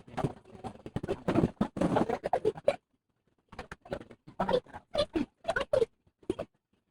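Small clicks, taps and scratching of hand work on a laptop's parts: a dense run of scrapes and clicks, a short pause, then a string of separate sharp clicks.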